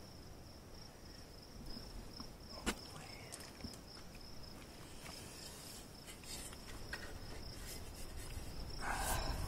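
A steady high-pitched insect trill in the background, with a few light clicks of a wrench and exhaust fittings being handled. One sharp click comes about a third of the way in, and a short scrape comes near the end.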